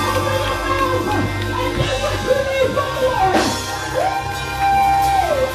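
A woman sings a gospel praise song into a microphone over live instrumental accompaniment. About four seconds in she holds one long note that drops away at its end, and voices in the congregation shout along.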